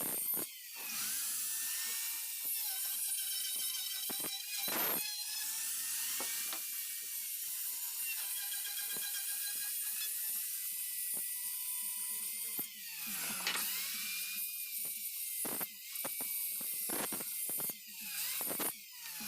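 Small high-speed power tool running on wood, with a few brief breaks and slight rises and falls in pitch.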